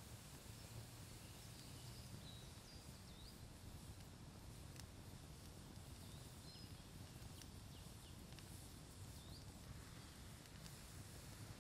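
Near silence: faint woodland ambience with a low steady hum and scattered short, high bird chirps, plus a couple of faint clicks.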